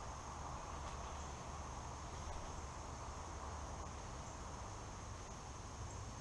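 Insect chorus: a steady high-pitched drone over a low steady rumble.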